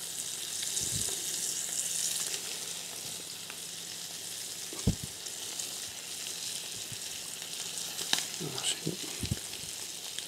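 Flour-dredged sardines frying in olive oil in a frying pan: a steady sizzle, with a single light knock about halfway through and a few small clicks near the end.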